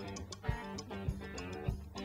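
Background music with a steady beat, a low drum thump a little under twice a second under sustained pitched instruments.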